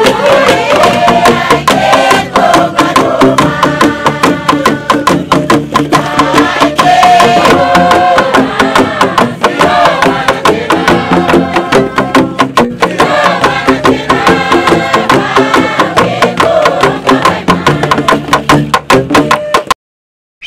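Traditional Bougainville bamboo music: bamboo tubes struck in a fast, steady beat under a shifting melody of pitched tones. It cuts off suddenly near the end.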